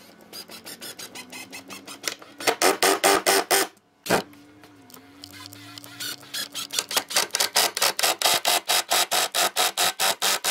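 Cordless impact driver hammering long screws into pine joints, a rapid clatter of about nine impacts a second. It runs in two bursts: the first grows loud and stops about four seconds in, and the second starts about six seconds in and runs as the screw is driven home.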